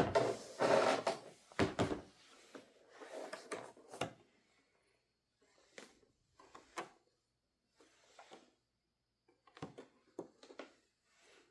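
Cardboard model box and its packaging being handled and opened: a run of scrapes and rustles at first, then scattered short knocks and slides.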